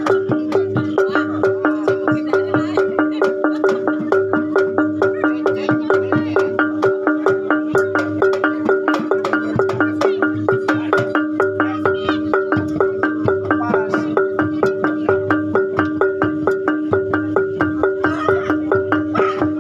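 Gamelan music: metal mallet-struck instruments ringing over held tones, in a fast, even pulse that does not break.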